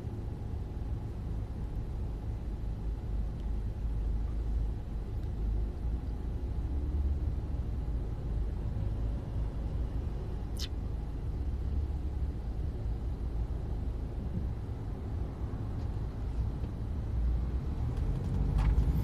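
Steady low rumble of a car moving in traffic, heard from inside the cabin. One brief sharp tick comes about halfway through.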